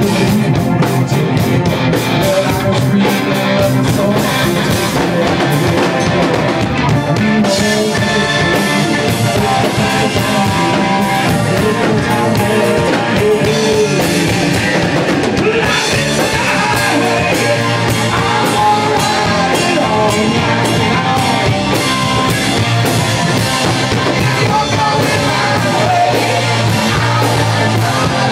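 Live rock band playing loud and steady: electric guitars, bass, keyboards and a drum kit, with a man singing lead vocals into a microphone.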